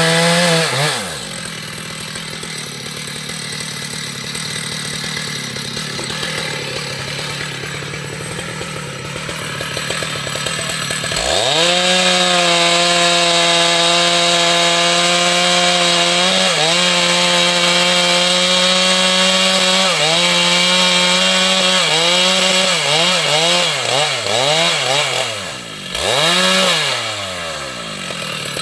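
Stihl two-stroke chainsaw cutting into a tree trunk. Its revs drop about a second in, climb back to full throttle about a third of the way through and hold there, then dip and rise several times before falling away near the end.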